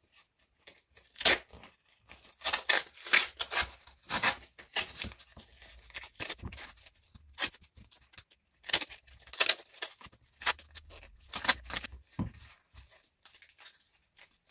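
Wide masking tape pulled off its roll in a long series of short, irregular rips and torn off as it is wrapped around a foam ball.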